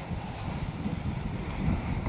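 Wind buffeting the microphone, an uneven low rush with a thin hiss above it.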